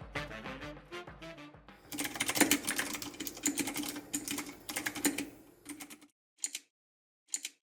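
Typing fast on an all-aluminum mechanical keyboard: a quick run of key clicks lasting about four seconds, then two single key presses near the end.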